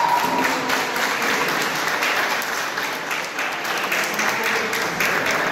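A group of people applauding, a steady patter of many hands clapping.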